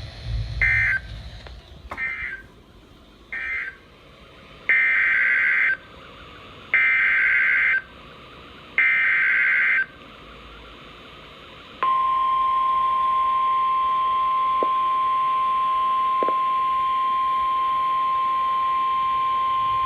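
Emergency Alert System tones as relayed by weather radio. First come three short end-of-message data bursts, then three longer SAME header data bursts of about a second each. Then a steady single-pitched warning alarm tone is held for about nine seconds, signalling that a new warning follows.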